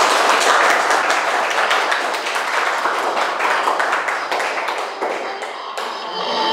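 A classroom of students applauding, many hands clapping together; the clapping eases off a little near the end.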